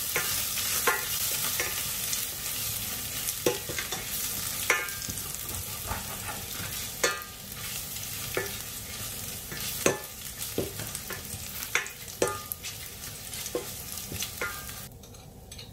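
Grated garlic and ginger sizzling in hot oil in a stainless steel sauté pan, stirred with a spoon that scrapes and taps the pan bottom at irregular intervals of about a second. The sizzle drops away suddenly just before the end.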